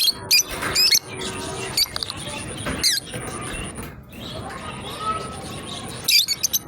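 Lovebirds chirping: short, sharp, high-pitched chirps that sweep in pitch. They come in clusters at the start, about three seconds in, and near the end.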